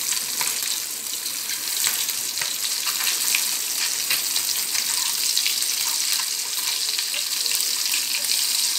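Masala-coated halved boiled eggs sizzling steadily in hot oil in a small frying pan as they are turned over with a spoon, with many small crackling pops.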